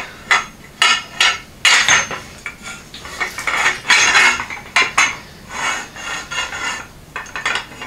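Steel EMT conduit and a hand conduit bender clanking and scraping on a concrete floor as the tubing is worked and bent: an irregular string of sharp metallic clinks and knocks, with a few short stretches of scraping.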